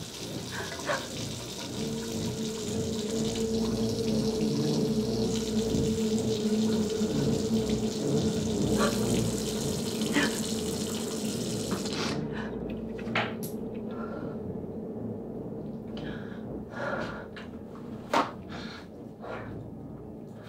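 Kitchen faucet running water into a stainless steel sink, shut off suddenly about twelve seconds in. A few light knocks follow.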